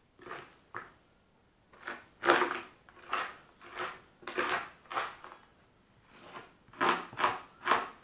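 Metal spoon scraping leftover raw chum salmon flesh off the backbone and skin against a wooden cutting board, in about a dozen short, irregular scraping strokes.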